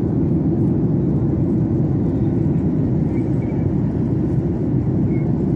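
Steady low rumble of engine and airflow noise inside a jet airliner's cabin during the climb.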